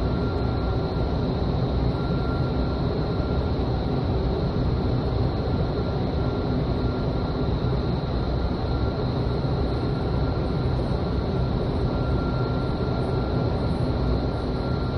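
Indoor skydiving wind tunnel running: a steady rush of air and a low fan rumble, with faint steady whines above, heard through the glass wall of the flight chamber.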